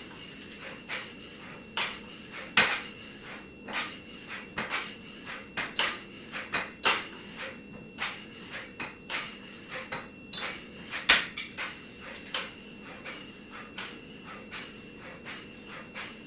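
Irregular sharp metallic clicks and clinks, about one or two a second, the loudest near the eleven-second mark, over a steady faint hum with a thin high tone.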